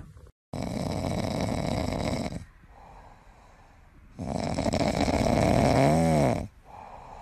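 A sleeping pet snoring loudly, with long rough snores about every four seconds and quieter breaths between them. The second snore ends in a short whistling tone that rises and falls.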